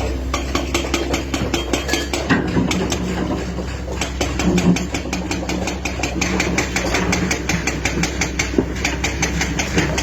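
Excavator engine running steadily under a fast, even ticking clatter.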